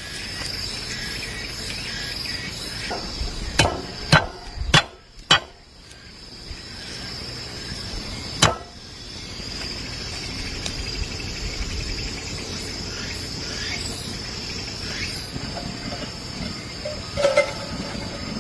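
Insects trilling steadily at a high pitch, with a series of sharp knocks: four in quick succession about four seconds in, one more about four seconds later, and a brief clatter near the end.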